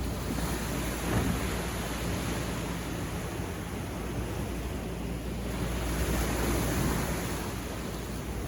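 Waves breaking and washing up a beach, swelling louder about a second in and again past the middle, with a low rumble of wind on the microphone.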